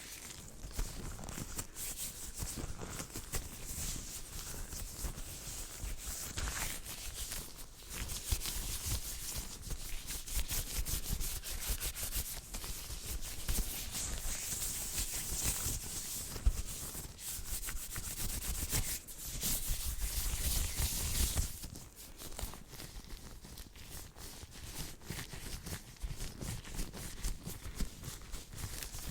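Hands rubbing together fast and close to the microphone: a dense, quick rustling that grows louder around the middle and turns softer for the last several seconds.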